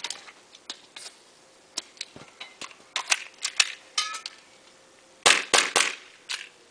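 Airsoft gun firing: scattered sharp clicks and single shots, then three loud shots in quick succession about five seconds in.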